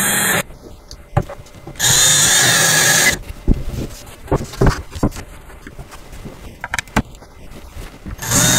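Cordless drill driving bolts into a wooden frame in short bursts: one at the start, a longer one about two seconds in and another near the end, with clicks and knocks of handling between.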